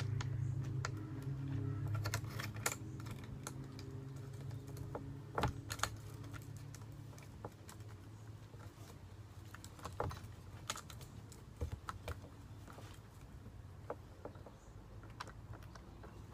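Scattered light clicks and taps of metal parts being handled as a bar and chain are fitted to a chainsaw, over a low hum that fades away in the first few seconds.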